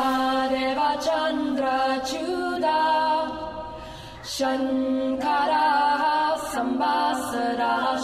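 Background music: a sung chant, voices holding long notes, with a brief pause about halfway through.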